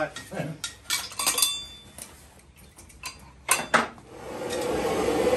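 Brass plumbing fittings, copper pipe and a metal spanner clinking and knocking together as a brass valve body is handled and worked onto copper pipe: a few sharp clinks about a second in and two more about three and a half seconds in. A steady hum comes up near the end.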